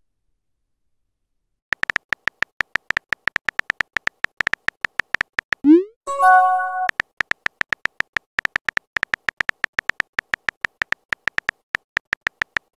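Rapid clicks of a phone's on-screen keyboard as a text message is typed, starting about two seconds in. About six seconds in, a short rising pop and a brief bright chime, the chat app's message sound, then the typing clicks carry on.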